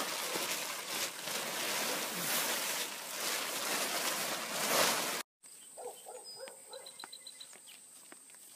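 Plastic tarp rustling and crinkling as corn husks and cobs slide off it onto the ground, for about five seconds. After a sudden cut it is much quieter, with faint insect chirping and a steady high insect buzz.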